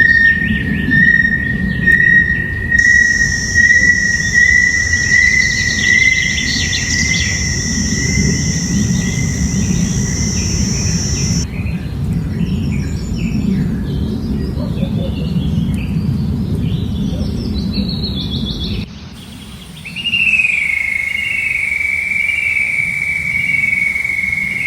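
Forest ambience: birds chirping and calling over steady, high-pitched insect drones and a low rumble. The mix changes abruptly twice, with a brief drop in level about nineteen seconds in.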